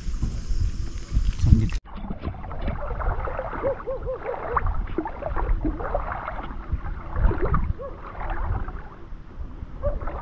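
Shallow seawater sloshing and gurgling, full of small bubbling tones, with an abrupt change in the sound about two seconds in.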